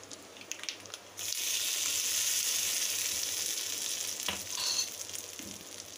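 Hot tempering oil with mustard seeds, dried red chillies and curry leaves poured onto coconut chutney, sizzling as it hits. The sizzle starts suddenly about a second in and slowly dies down toward the end.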